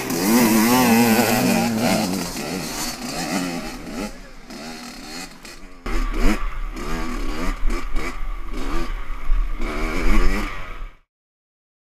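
Kawasaki dirt bike engine revving up and down over and over as it rides a rough trail. In the second half it is heard from the helmet camera with low wind rumble. The sound cuts off suddenly near the end.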